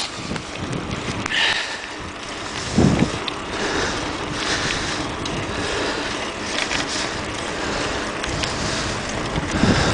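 Wind buffeting the microphone of a camera carried on a moving bicycle, over the rolling noise of tyres on an asphalt path, with a few small rattling clicks and a low thump about three seconds in.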